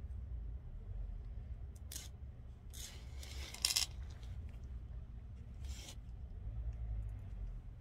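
Gloved hands handling the leafy stems of a Dioscorea elephantipes vine on its trellis: three short rustling, scraping sounds, the longest about three seconds in with a sharp snap at its end.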